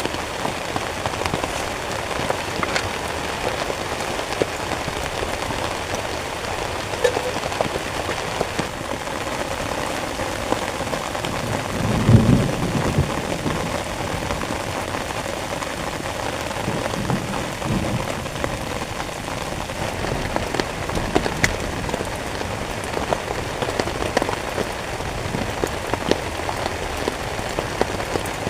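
Heavy rain falling steadily on a tent, a dense hiss dotted with countless small drop ticks. A brief low thump about twelve seconds in, and a fainter one a few seconds later.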